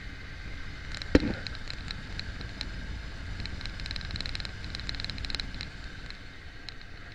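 A 1997 Chevrolet K1500's 5.7 L V8 idling, its new serpentine belt running over a freshly installed tensioner and idler pulley: a steady rumble with light high ticks scattered through, thickest in the middle, and a sharp click about a second in.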